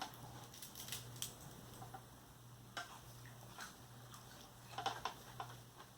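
Faint, irregular crunches and clicks of someone chewing a crispy breaded chicken ring, a few seconds apart with a small cluster near the end, over a steady low hum.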